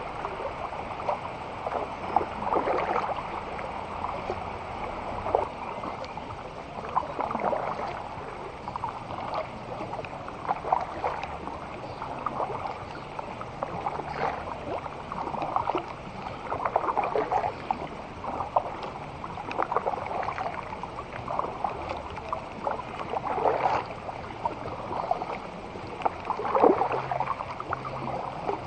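Kayak paddle strokes through river water: the blade dips and splashes in a steady rhythm, about one stroke every second or so.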